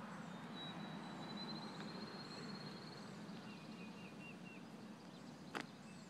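Field sparrow singing faintly: one long, high, thin trill that grows stronger over about three seconds. A short run of lower repeated notes from another bird follows, with faint high chirps from other birds in the background.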